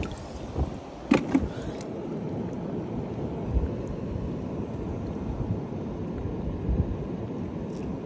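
Water splashing and dripping in a shallow rock pool as a hand lifts out a sea urchin and reaches back in, with a few short splashes about a second in, over a steady low rumble.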